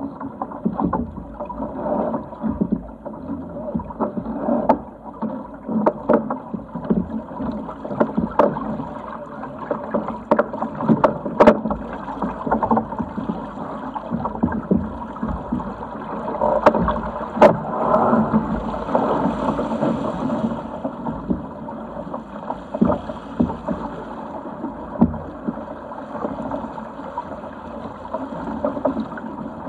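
Water rushing along the hull of a Sigma 8 metre racing yacht under sail, with frequent irregular sharp slaps of waves against the hull.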